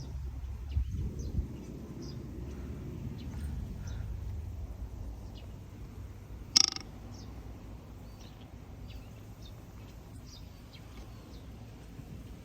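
Small birds chirping in short high calls over a steady low rumble. One sharp click about six and a half seconds in.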